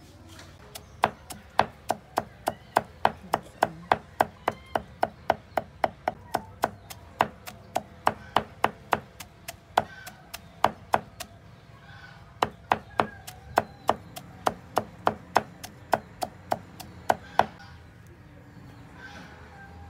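Cleaver chopping fresh green herbs on a wooden chopping board: a quick run of sharp knocks, about two to three a second, with a short pause midway, stopping near the end.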